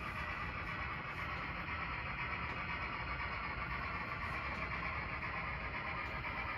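N-scale model train running on track: a steady, even whir and rolling noise.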